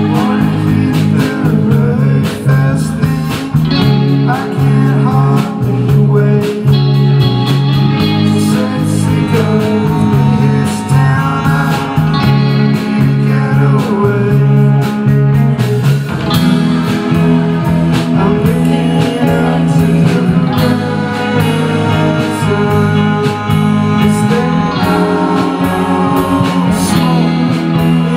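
A live band playing with electric guitars, saxophone and keyboard, and singing.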